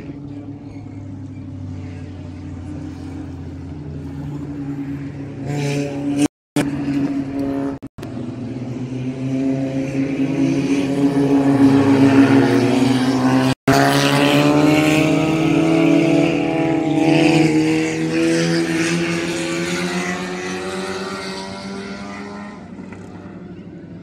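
Four-cylinder stock cars racing past on an oval track. The engines build to their loudest around the middle as the pack comes close, rising in pitch, then fade away. The sound cuts out briefly three times.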